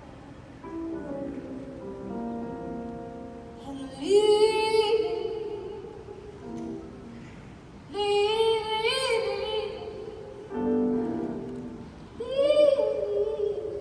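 A woman's solo voice singing long, held notes with vibrato, backed by an orchestra. The orchestra holds soft, sustained chords in between, and the voice comes in strongly three times, about four seconds apart.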